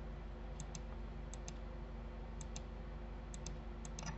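Computer mouse clicking: about five pairs of quick clicks, spaced roughly a second apart, over a steady low hum.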